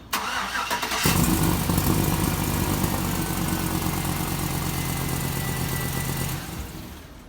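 Chevrolet Silverado's 6.0 V8 cranked by the starter for about a second, then catching and running loud with an exhaust leak behind the header, from a loose header bolt and gasket. It shuts off about six seconds in.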